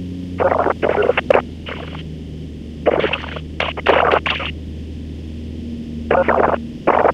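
Cessna 150's four-cylinder engine droning steadily in the cockpit, with several short bursts of thin, clipped voice over the headset radio on top of it, about a second in, around three to four seconds in, and near the end.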